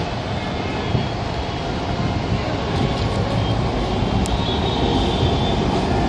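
Train running, a steady low rumble that grows slightly louder, with a few faint clicks.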